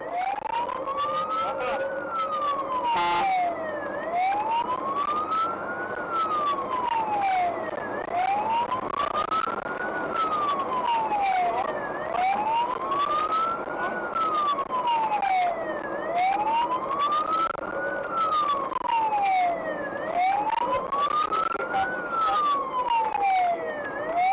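Fire engine siren sounding a slow wail: one tone rising over about two seconds and falling over about two seconds, about one cycle every four seconds, over the truck's road noise.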